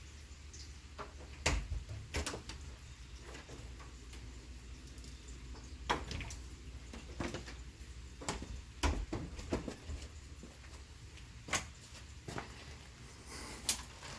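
Raindrops dripping and ticking at irregular intervals, about one sharp drip a second, over a steady low rumble.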